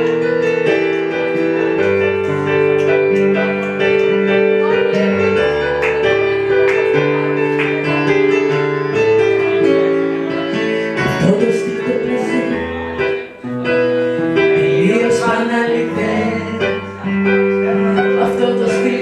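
Live music from a stage keyboard with a piano sound, playing held chords that change every second or so. A singing voice comes in at times in the second half.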